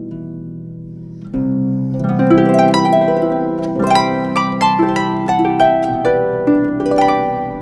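Harp music: soft held low notes, then from about a second in a louder, flowing run of plucked notes that ring on.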